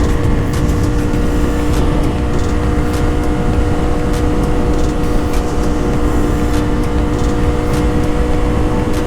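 Honda CBR500R's parallel-twin engine running at a steady, unchanging pitch while riding, over a low rumble of wind noise.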